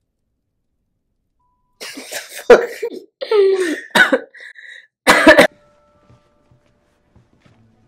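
People laughing in several short, loud bursts, starting about two seconds in and stopping a little past halfway.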